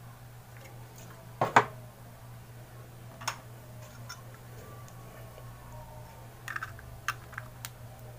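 Sharp metal clicks and taps from handling a Zippo lighter: a loud double click about one and a half seconds in, another near the middle, and a cluster of lighter clicks near the end, over a steady low hum.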